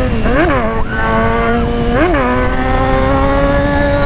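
Kawasaki Z1000's inline-four engine running hard as the motorcycle accelerates at speed, with wind noise on the microphone. The engine note jumps briefly up and back down twice, about half a second and two seconds in.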